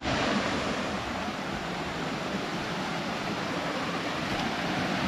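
Small rocky forest stream flowing over stones, a steady rush of water that grows slightly louder toward the end.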